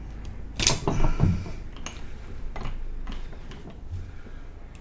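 Sharp metallic clicks from a Browning 1919 machine gun's barrel and barrel extension as the barrel is backed out one notch against its locking spring with a screwdriver to set headspace. Three loud clicks come close together within the first second and a half, followed by a few fainter knocks.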